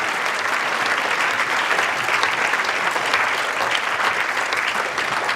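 Audience applauding: a dense, steady clatter of many hands clapping at once, with no break.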